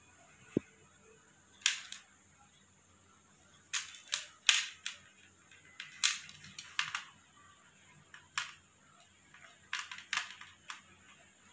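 Small metal jewellery pliers clicking and tapping as they squeeze a crimp bead ('gear lock') shut on beading wire: a string of about fifteen sharp, irregular clicks, often a second or so apart and sometimes in quick pairs.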